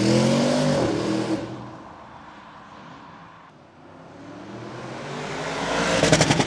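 Audi RSQ8's twin-turbo V8 accelerating past twice on its stock exhaust with particulate filter and catalysts: a rising engine note that fades away, then a second pass building to a peak near the end, with a quick run of sharp pulses at its loudest. The exhaust flap is open under load.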